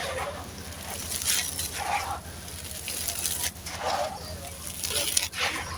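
Dry, gritty sand-cement being crushed and crumbling in repeated crunches, roughly one a second.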